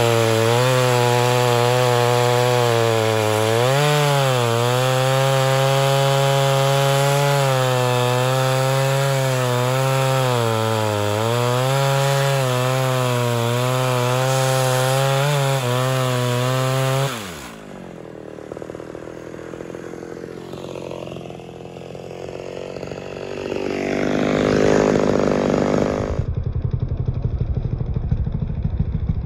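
Ported Homelite Super XL Auto two-stroke chainsaw running at full throttle in a cut through a large log, with a chain that is getting dull; its engine note sags and recovers a couple of times under load. After about 17 seconds the engine note drops away sharply, leaving quieter mixed sounds, and near the end a louder clattering noise comes in.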